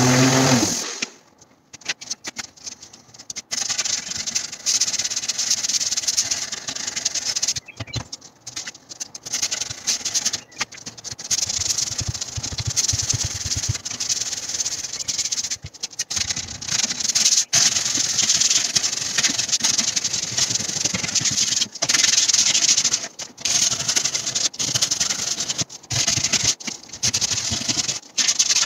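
A random orbital sander's motor winds down in the first second. Then sandpaper is rubbed by hand over a wooden cabinet door panel, a scratchy hiss in runs of strokes broken by short pauses.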